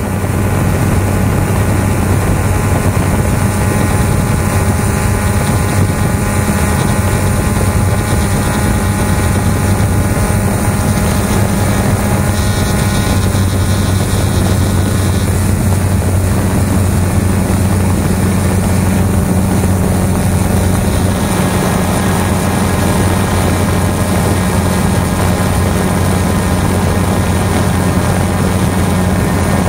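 XK Detect X380 quadcopter's motors and propellers running in flight, a loud steady hum as picked up by the camera mounted under it, with a rushing of air.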